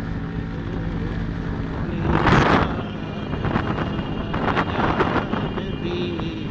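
Motorcycle engine running steadily at road speed, with wind buffeting the microphone: a loud gust a little over two seconds in, then several shorter buffets.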